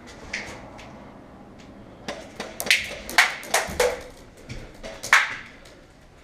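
A run of sharp, irregular snaps and clicks, one near the start, a bunch about two to four seconds in and one more about five seconds in.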